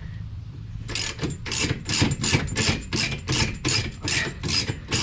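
A hand tool working in quick, even strokes, about three a second, each a short rasping burst, starting about a second in.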